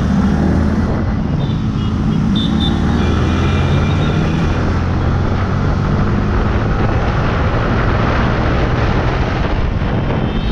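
Yamaha R15 sport bike's single-cylinder engine pulling hard under acceleration, shifting up from third to fifth gear as road speed climbs, with wind rushing past.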